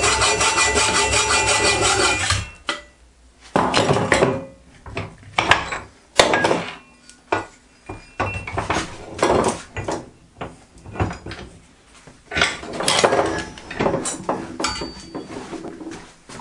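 Hacksaw cutting through the runner of a cast aluminium finned cylinder held in a vice. A steady run of fast strokes stops suddenly about two and a half seconds in, followed by slower, separate strokes and scraping.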